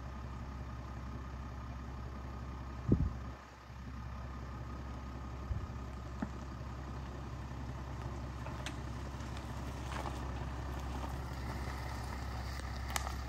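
Range Rover Velar's engine running steadily at low revs as the SUV creeps along a gravel track, with a sharp knock about three seconds in and a few light clicks later on.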